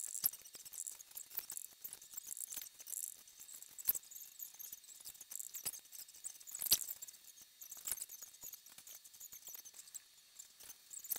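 Faint, scattered squeaks and ticks of a dry-erase marker on a whiteboard, in short separate strokes as names are written. Louder single strokes come about four and seven seconds in.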